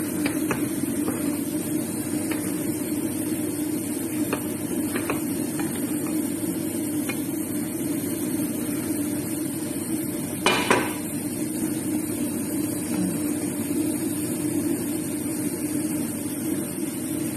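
A utensil knocking and scraping against a cooking pot as cooked rice is stirred and fluffed: scattered light clicks and one louder knock about ten seconds in, over a steady hum.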